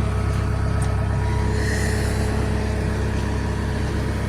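Tractor engine running steadily at a constant speed, a low, even hum.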